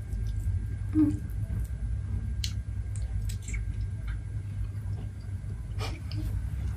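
A person chewing a mouthful of food eaten by hand, with scattered short mouth clicks and smacks over a steady low hum.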